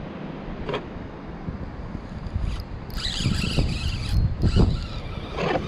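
Wind rumbling on the microphone as a canoe is paddled. A burst of water splashing comes about three seconds in, and a couple of short knocks fall about a second in and near the end.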